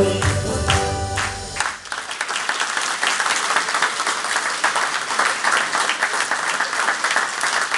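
The closing bars of a song with a steady beat, which stops about a second and a half in, then a hall full of people applauding.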